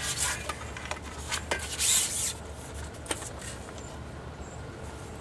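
Rustling and a few light clicks from an angler handling his pole and tackle, the loudest a brief hissing rustle about two seconds in, over a low steady rumble.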